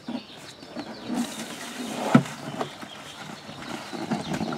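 Red plastic gas can handled and set into a plastic Drop N Fill pouring stand: scattered scrapes and knocks, with one sharp knock about two seconds in.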